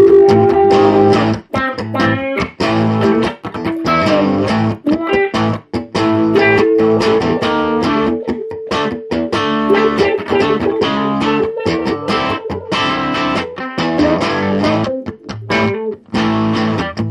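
Electric guitars played through amplifiers, a red semi-hollow-body among them: rhythmic strummed chords and picked notes, with a few brief stops.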